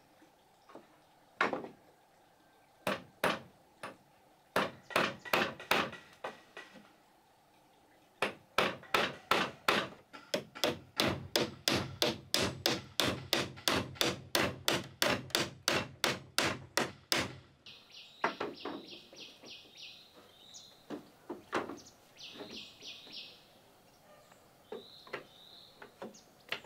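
A hand tool striking wood: a few separate blows, then a steady run of about three blows a second for some nine seconds. Short bird chirps follow after it stops.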